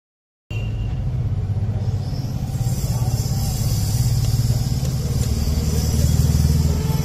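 A motor vehicle engine running steadily with a low rumble, starting abruptly about half a second in after dead silence.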